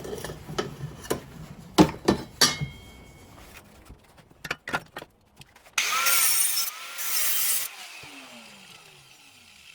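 Metal parts clinking and knocking, then a cut-off tool cutting slots into the end of an exhaust pipe in two short bursts, winding down with a falling whine after each release.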